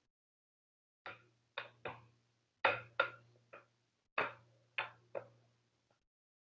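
Rolling pin knocking against dough and a silicone mat as it is pushed back and forth: about nine short, fairly faint knocks in a little over four seconds, each dying away quickly.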